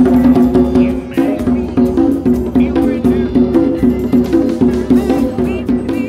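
Music with a steady percussive beat, cutting in suddenly.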